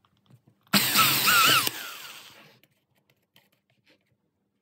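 Electric drill with a 4 mm bit drilling into the plastic backplate of a tado° smart thermostat: the motor starts suddenly under a second in, runs hard for about a second with its whine wavering in pitch, then winds down over the next second.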